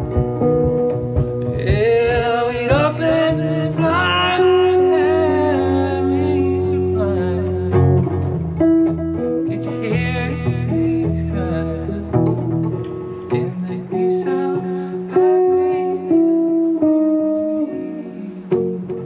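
Acoustic guitar playing a slow tune, with a melody line gliding above the chords.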